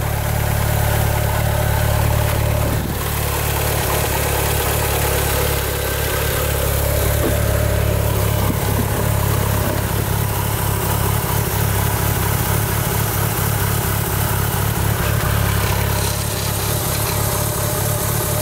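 2g Mitsubishi Eclipse engine idling steadily.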